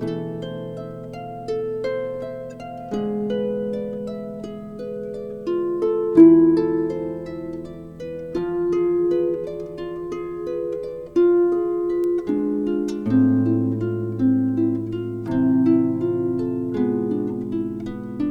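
Instrumental music: a harp plays a running line of plucked notes over held low tones that change every few seconds.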